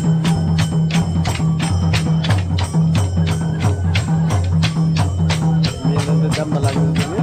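Folk dance music: a barrel drum beats a steady rhythm under sharp, jingling strikes about four a second.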